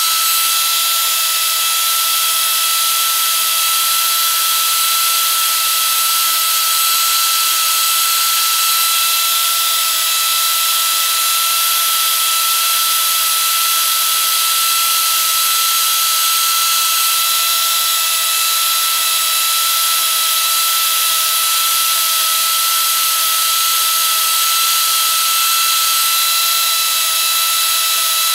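Arbortech Mini Pro power carver running at constant speed while its cutting disc scoops shallow scallops into a wooden board: a steady whine that holds one pitch, over a dense hiss.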